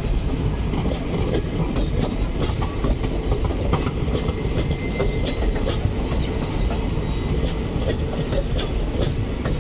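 Passenger coaches of an Indian Railways express rolling past: a steady rumble of steel wheels on the rails, with scattered clicks and knocks from the wheels and bogies.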